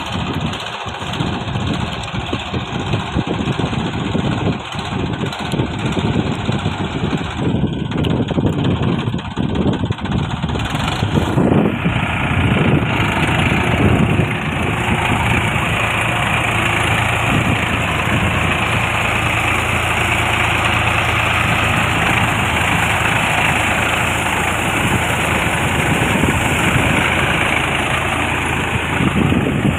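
Tractor's diesel engine running steadily under load while its rear rotary tiller churns through wet paddy mud. The sound grows brighter and a little louder about twelve seconds in.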